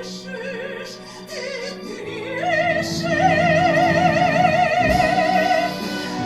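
Operatic singing over orchestral accompaniment. A high voice with wide vibrato sings short phrases, then rises to one long held note of about three seconds before letting it go near the end.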